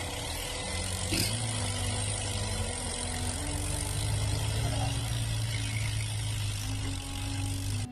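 Motor vehicle running: a steady low engine rumble under an even rushing noise, with a single sharp knock about a second in. The sound cuts off abruptly just before the end.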